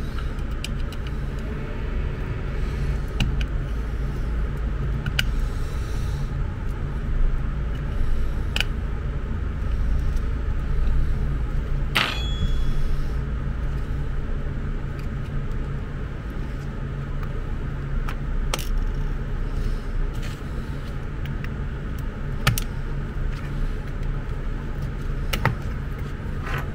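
Scattered small clicks and taps of plastic and metal as an electric bed's wired hand remote is taken apart by hand, its circuit board lifted out of the plastic case, with one louder click that rings briefly about twelve seconds in. A steady low rumble runs underneath.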